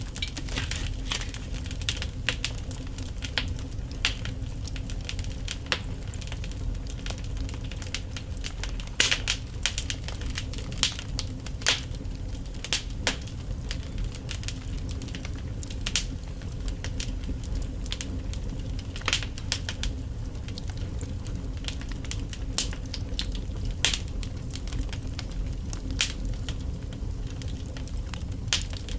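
Wood logs burning in a fireplace, crackling with frequent irregular sharp pops and snaps over a steady low rumble.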